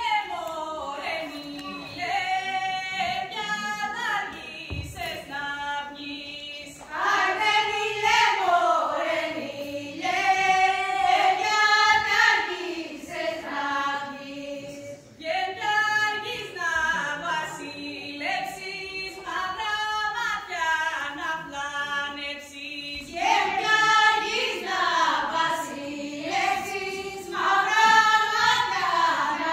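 A small group of voices singing an Epirote folk song together, in long sustained phrases with short breaks between them.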